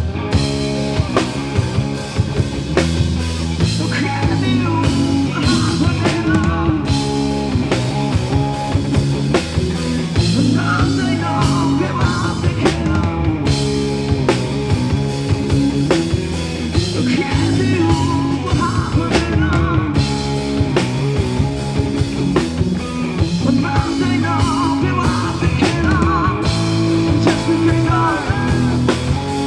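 Live rock band playing a song with drum kit, bass and guitar, a singing voice or lead line carrying the melody at times.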